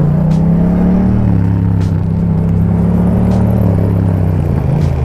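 Yamaha MT-07's parallel-twin engine running through a full Akrapovic exhaust system, holding a steady note. The pitch drops slightly about a second in, then dips and picks up again near the end.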